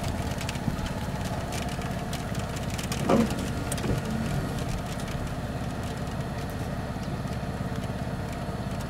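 Car engine running with a steady hum inside the chase vehicle's cabin. A brief rising sound comes about three seconds in.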